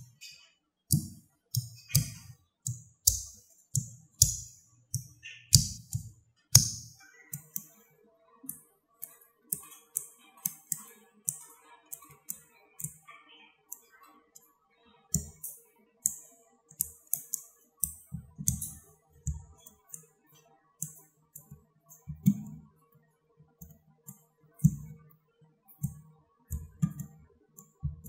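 Small neodymium magnetic balls clicking as they snap onto a cluster of other balls, one after another at an uneven pace, some clicks with a dull knock against the tabletop.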